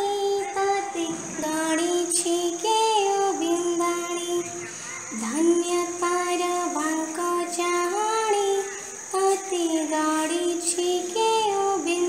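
A girl's voice singing an Odia Jagannath bhajan, a devotional song in long held notes that glide between pitches, with a faint steady high-pitched whine underneath.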